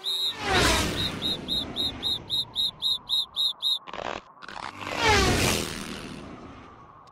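Cartoon sound effects: a rapid train of short, high chirps, about four a second, with a whooshing pass-by that falls in pitch at the start and another about five seconds in.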